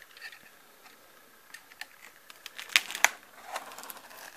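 Knife cutting packing tape along the edge of a cardboard box: scattered scrapes and clicks, with two sharper snaps about three seconds in.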